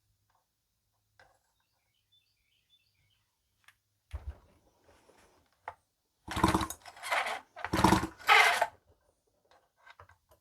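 Stihl 028 chainsaw's recoil starter pulled about four times in quick succession, the rope whirring and the engine spinning over freely with its spark plug out, to check for spark.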